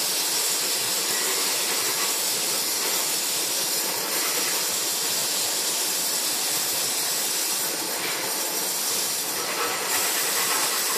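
Gas torch flame hissing steadily against a hand-held crucible, melting silver for casting.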